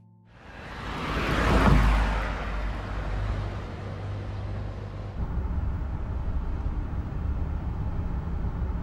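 A city bus going by, the noise of its engine and tyres swelling to a peak about two seconds in. It settles into a steady low engine rumble with a hum.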